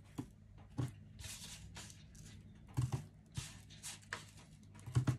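Hands mixing and kneading glutinous rice flour dough in a plastic bowl: soft irregular rustling and squishing, with a few short knocks against the bowl, the loudest near the end.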